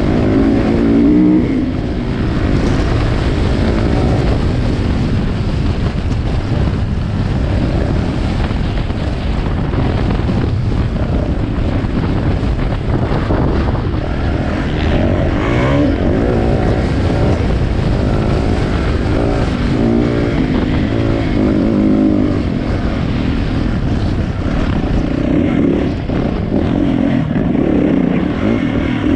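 2016 Yamaha YZ450F's single-cylinder four-stroke engine running hard under load on a dirt trail, its revs rising and falling continually with the throttle, heard close up from the rider's helmet camera.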